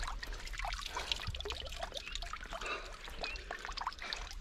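Water dripping and trickling off a large wels catfish held up out of the river, with many small, irregular splashes as the fish and the wader-clad angler shift in the water.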